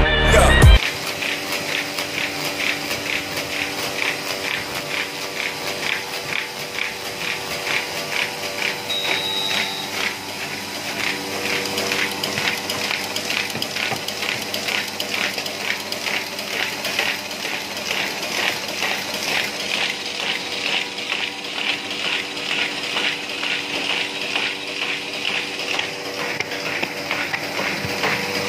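Music cuts off just under a second in. Then a Shoei 56 4KTTL buckle-and-knife paper folding machine runs, sheets going through with an even, rapid clatter over a steady mechanical hum.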